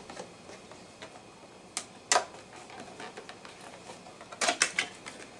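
Small cardboard box being opened and handled: scattered taps and crackles of card, with a sharp snap about two seconds in and a quick run of them near the end.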